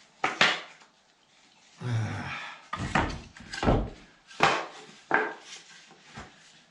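Wooden knocks and short scrapes as pieces of wood are pushed and tapped into the gaps between the logs of a log wall, about half a dozen separate knocks.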